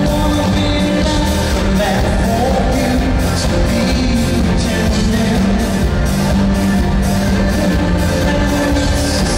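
Live pop band playing a song, with a male lead singer, electric bass and a steady beat.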